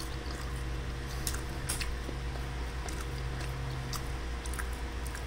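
A person chewing a fry with his mouth close to the microphone: scattered small mouth clicks and smacks over a steady low hum.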